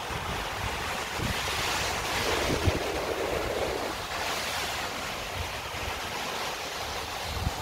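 Ocean surf breaking and foaming over a rocky shore: a steady rushing wash that swells about two seconds in and again a little past four seconds. Wind rumbles and gusts on the microphone.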